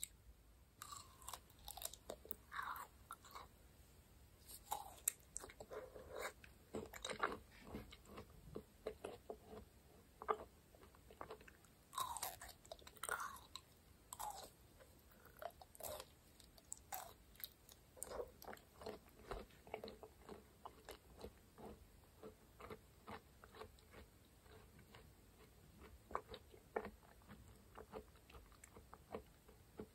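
Biting and chewing of raw aloe vera gel: many short clicks, with a few louder bites in the first half and a steady run of softer chewing after.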